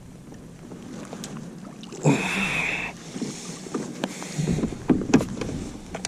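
Fishing tackle sounds during the fight with a hooked bass: a brief steady buzz about two seconds in, then several sharp knocks and thumps near the end.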